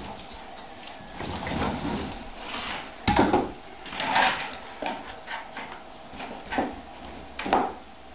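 Stainless steel pet food bowls being set down on a wooden floor, clanking in a series of irregular knocks, the loudest about three and four seconds in and another near the end.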